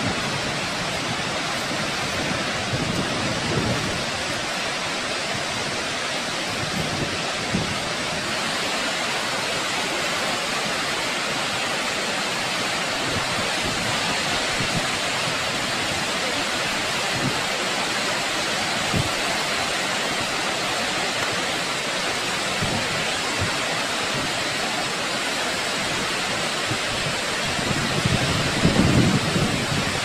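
Large waterfall thundering into its plunge pool: a steady, dense rush of falling water and spray, with a few brief low surges, the strongest near the end.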